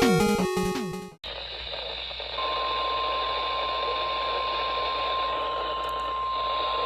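A weather radio receiver hissing with static. About two seconds in, a single steady tone starts over the hiss: the NOAA Weather Radio 1050 Hz warning alarm tone, sent during the weekly test. Intro music cuts off about a second in.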